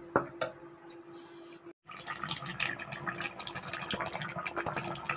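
Fish curry boiling hard in a metal kadhai, bubbling and popping densely. Before it, a steady hum and a couple of sharp clicks, broken by a brief dropout a little under two seconds in.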